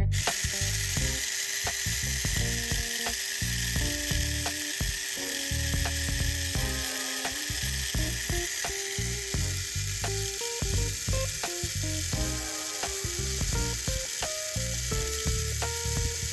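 Mini 4WD car's electric motor and gear train running at full speed, a steady high whirring hiss that switches on abruptly, over background music.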